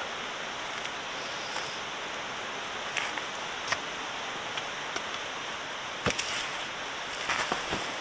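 Steady rushing of a river flowing over a stony bed, with a few scattered light clicks and knocks over it.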